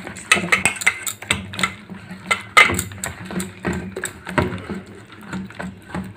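Hand kneading and squeezing a wet flour-and-milk batter in a stainless steel bowl: irregular clicks and clinks of bangles and fingers knocking against the metal bowl, several a second.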